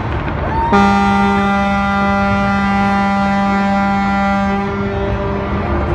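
A ship's horn on the harbour sounds one long, deep, steady blast of about five seconds, starting just under a second in, its upper tones dropping away a second before the low tone stops; a brief higher horn or whistle rises in just ahead of it. The low rumble of the fireworks display runs underneath.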